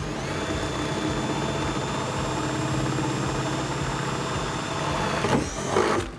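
Cordless drill running steadily with an 11/32-inch bit, drilling out a pilot hole through the two layers of a car's trunk lid. Its motor keeps an even whine, then near the end gives way to a brief louder burst of noise and stops.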